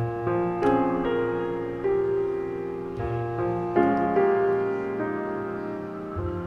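Piano music: chords struck about every second, each left to ring and fade before the next.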